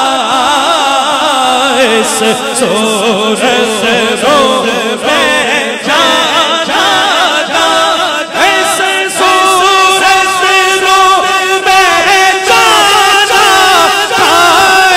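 Male naat reciter singing a Punjabi naat through a microphone, unaccompanied, in long ornamented phrases that glide between pitches, with notes held steady in the second half.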